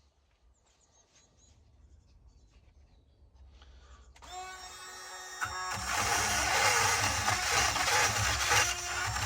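Faint clicks of handling, then an electric drill spinning up about four seconds in with a steady motor whine and, from about five and a half seconds, running loud as a burr bit grinds into a UAP lock cylinder.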